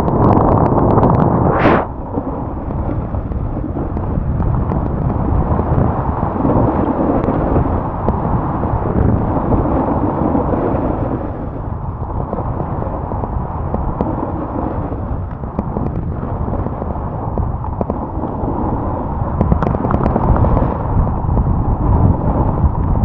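Snowboard riding down a groomed piste: the board scraping and hissing over the snow, with wind rushing over the microphone. It is loudest for the first two seconds, ending in a sharp swish of a turn, then goes on as a steadier scrape.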